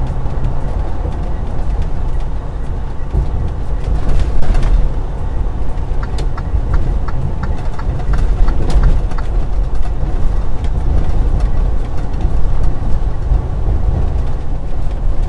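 Semi-truck cab interior while driving over a badly broken road: a steady low rumble of engine and tyres with knocks and rattles from the jolting cab and its fittings. In the middle comes a run of quick regular ticks, about three a second.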